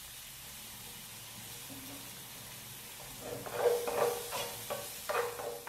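Minced onion and garlic sizzling gently in olive oil in a nonstick frying pan. About three seconds in, a wooden spatula stirs and scrapes across the pan in several quick strokes.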